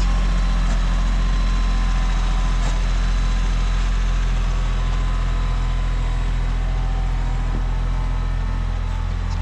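Vehicle engine running steadily at an even speed, a constant low hum with no revving, from machinery being used to clear snow.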